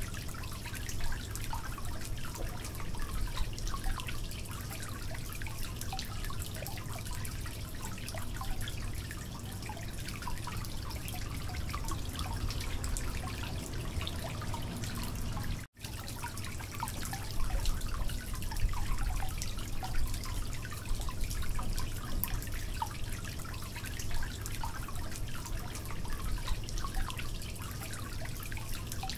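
Onion and spices frying in oil in an aluminium karahi, a steady crackling sizzle, with a wooden spatula stirring and scraping the pan at times. The sound drops out for an instant about halfway through.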